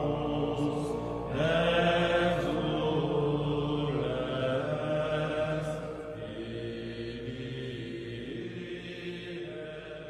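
Soundtrack music of low, sustained chanting voices holding long notes, slowly growing quieter toward the end.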